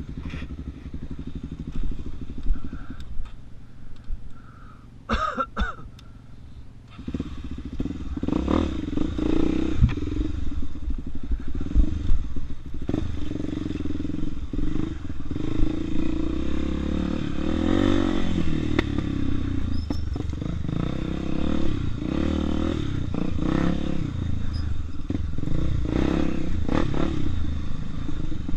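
Honda Tornado 250 single-cylinder dirt bike engine. For the first few seconds it runs low and quiet, with a few sharp clicks. From about seven seconds in it runs much louder under load, with rattling and knocking from the bike over rough ground.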